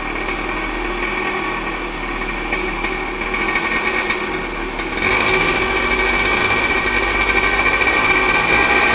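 Small engine of a radio-controlled monster truck running steadily with a buzzing tone, growing louder about five seconds in.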